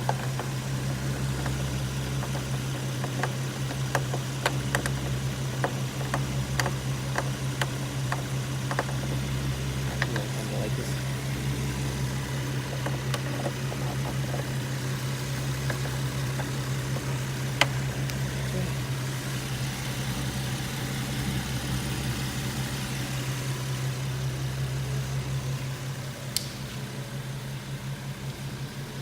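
Infiniti G37's 3.7-litre V6 idling steadily with a low hum, its deeper rumble coming and going, and a quick run of light clicks a few seconds in.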